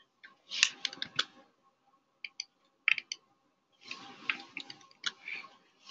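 Keys tapped on a computer keyboard in three short bursts of clicks: about a second in, around three seconds in, and a longer run from about four seconds in.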